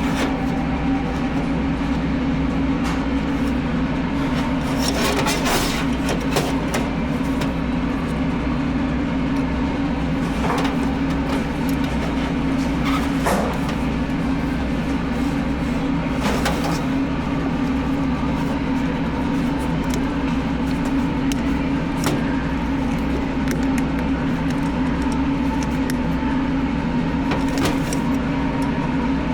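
Steady low machine hum at an even level, with a few faint clicks and knocks scattered through it.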